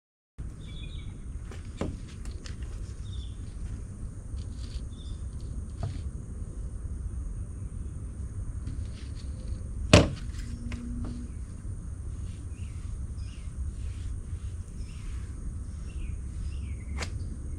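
Outdoor ambience: small birds chirping on and off over a steady low rumble, with one sharp knock about ten seconds in and a few fainter clicks.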